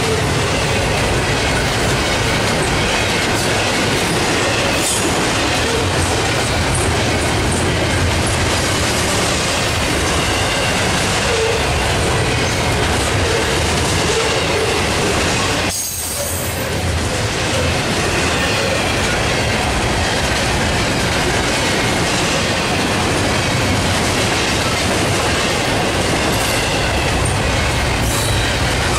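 Double-stack intermodal well cars rolling past at speed: a loud, steady rush of steel wheels on rail, with clicking over the rail joints and a faint high wheel squeal. The noise dips briefly about halfway through.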